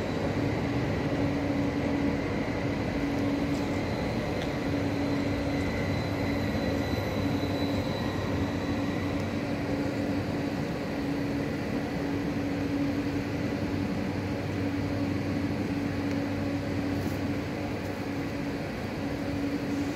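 Electric multiple unit pulling away along the station tracks: a steady hum of running gear and motors with a faint high whine, slowly getting quieter as it draws off.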